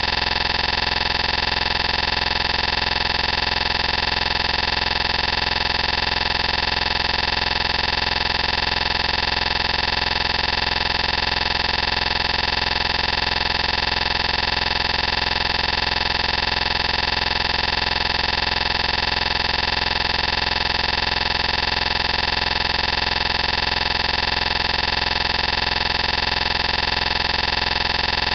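A loud, unchanging drone made of many steady tones, with no breaks, rises or falls.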